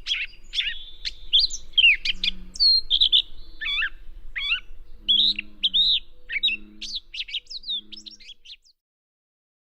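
Gray catbird singing: a rapid, jumbled run of short squeaky phrases, some sweeping down and back up, that stops near the end.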